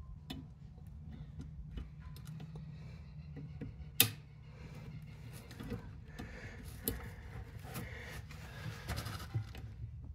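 Light metallic clicks and scraping of snap ring pliers working a snap ring onto a motorcycle brake pedal's pivot pin, with one sharp metal click about four seconds in.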